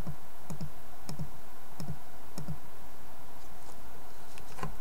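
A run of short, soft clicks, about one every half second over the first two and a half seconds, then a pause and one more near the end, over a steady hiss.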